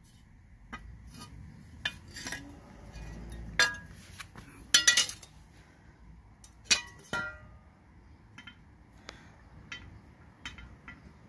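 Steel lawn mower blade being handled, clinking and knocking against metal at irregular intervals. The strongest few knocks ring briefly.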